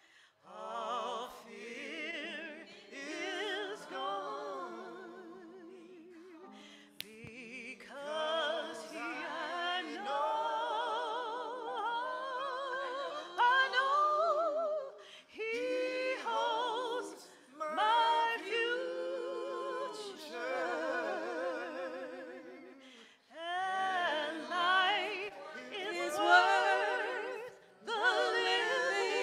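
Small church vocal group of men and women singing together, with marked vibrato. The song comes in phrases broken by short pauses.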